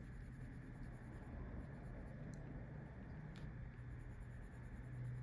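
Faint scratching of a felt-tip marker colouring in a box on a paper sheet, over a low steady hum.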